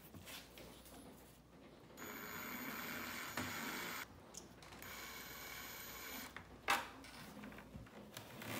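Cordless drill/driver running in two spells of about two seconds and a second and a half, with a steady whine, as it backs a screw out of a carpeted wooden speaker cabinet. A single sharp click follows a little later.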